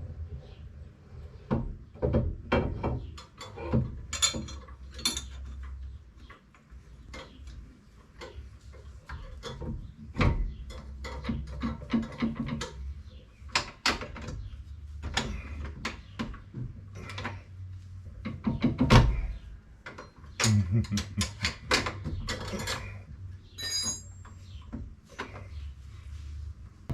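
Scattered metal clinks, knocks and clanks of hand tools and parts being worked during a rear axle install on a Mopar 8 3/4 axle housing, over a steady low hum.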